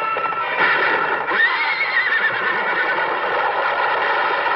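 A horse whinnies about a second and a half in, a wavering call that falls away, over the continuous clatter of galloping hoofbeats.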